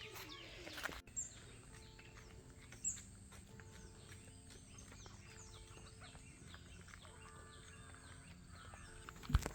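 Wild birds chirping and calling, many short quick notes. A brief loud knock comes near the end.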